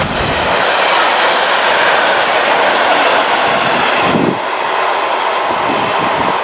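Freight train of tank and container wagons passing at speed, a steady loud noise of wheels running on the rails. A brief high hiss comes about three seconds in, and a little after four seconds the last wagon goes by and the sound falls to the quieter noise of the train moving away.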